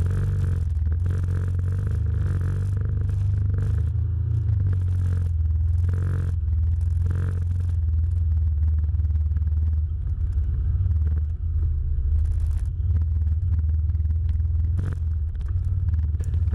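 Can-Am Commander side-by-side's engine running at a low, steady speed on a rough trail, with scattered scrapes and knocks, most of them in the first several seconds.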